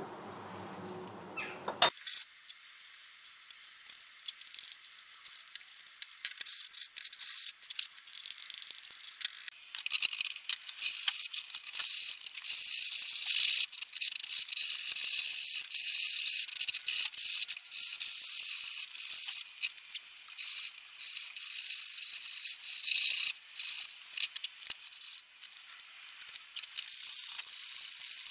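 Sandpaper rubbed by hand over a hand plane's wooden rear handle (tote): a thin, scratchy rasping in irregular strokes that starts about two seconds in, just after a couple of sharp knocks.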